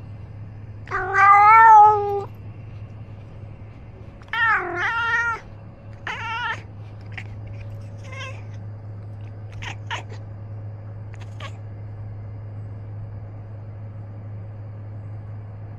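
Domestic cat meowing close to the microphone: a long meow about a second in, two more between about four and six and a half seconds, then a few short, fainter calls. A steady low hum runs underneath.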